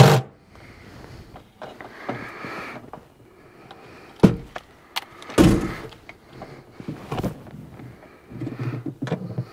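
Cordless drill/driver working on a fastener inside a metal under-seat lock box. There is a short run of the drill's motor and scattered metal knocks and clatter, with a sharp knock at the start and the loudest rattle about five seconds in.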